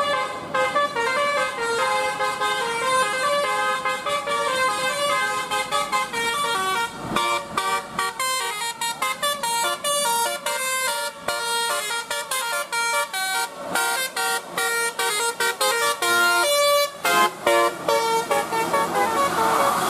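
Bus fitted with a 'basuri' telolet horn, a set of trumpet horns that plays tunes, playing a quick melody of stepped notes over and over.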